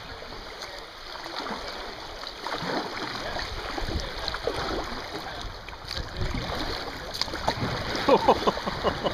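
Shallow river current rippling and splashing around a kayak being paddled downstream. Near the end comes a run of louder scraping and swishing as the bow pushes into tall reeds.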